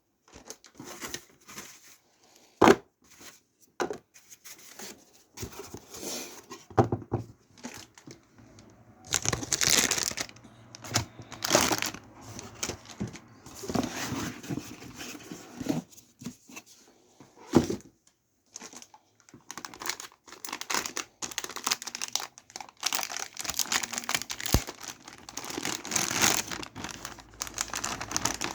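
Plastic packaging and protective film of a new graphics card being unwrapped and peeled: irregular crinkling and rustling with some tearing, broken by a few sharp knocks, the loudest about three seconds in and again past the middle.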